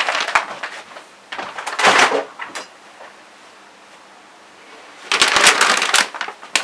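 Plastic bags of RC car kit parts rustling and crinkling as they are handled, in three bouts with a quieter stretch in the middle.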